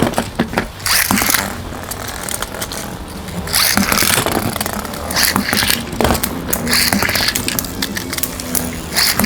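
Plastic Beyblade tops and launchers clicking and scraping as they are handled and launched, with many short sharp clicks scattered throughout over a steady low hum.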